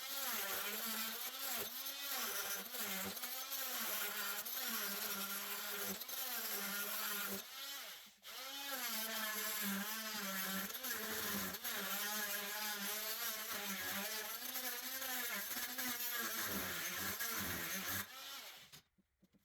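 Oscillating multi-tool buzzing as its blade cuts through a rusted toilet closet bolt, the pitch wavering as the blade bites and eases. It stops briefly about eight seconds in, restarts, and cuts off near the end.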